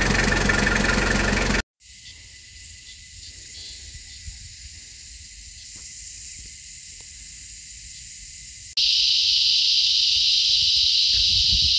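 A vehicle engine running for under two seconds, cut off suddenly. After a quieter stretch of faint outdoor rumble and a few soft clicks, a loud steady high-pitched insect chorus, typical of cicadas, sets in sharply about nine seconds in and holds.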